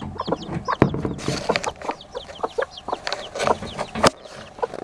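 A brood of baby chicks peeping, with many short, high chirps that fall in pitch, mixed with low clucking from the bantam hens. Two sharp taps come about a second in and near the end.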